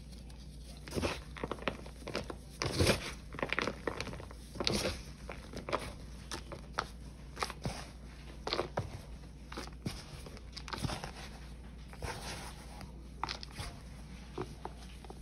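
Dry, crumbly Ajax cleanser paste mix being squeezed and raked by gloved hands: irregular soft crunching and crumbling, with a steady low hum underneath.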